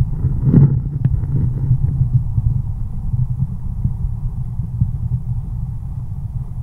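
Flowing river water heard through a submerged camera microphone: a muffled, low, steady rushing rumble with no highs, with a brief louder burst about half a second in.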